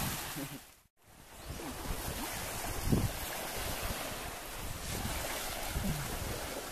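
Steady wind buffeting the microphone over surf washing on a beach. The sound drops out briefly about a second in, then the even rush of wind and waves carries on.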